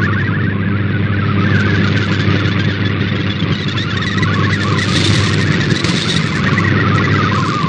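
Shortwave radio reception of a Shortwave Radiogram MFSK digital transmission sending an image: a warbling, shifting data tone over static, with a strong steady mains hum from local interference.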